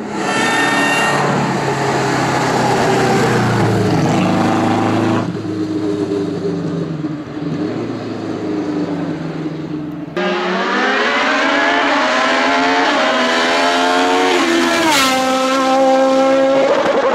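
Hillclimb race cars at full throttle, in separate passes cut together: first a vintage open two-seater racing car, then a modern sports prototype. The prototype's engine note climbs through each gear and drops at every upshift.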